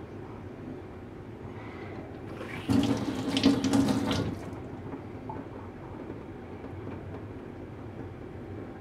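Water from a tap running briefly into a stainless steel sink, for about a second and a half, to wet a sharpening stone.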